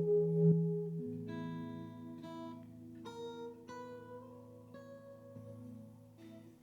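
Acoustic guitar played alone: a strummed chord rings and changes about a second in, then single picked notes sound over it, growing quieter toward the end.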